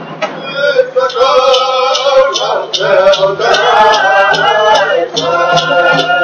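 Native drum song: voices singing together over a steady drumbeat of just under three strokes a second. The voices come in about half a second in.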